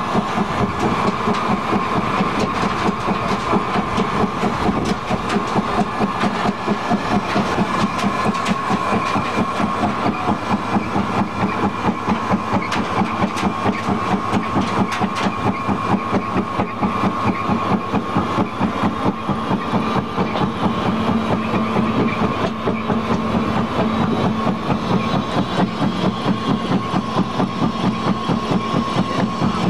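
Biomass briquette machine running: a steady mechanical drone from its electric motors, belt drive and worm gearbox, with a held hum and a fast, even pulsing.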